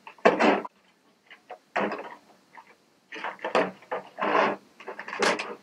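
Rigid clear plastic packaging being handled: a plastic lid lifted off a plastic box and parts shifted in a plastic tray, in several short clattering, rustling bursts.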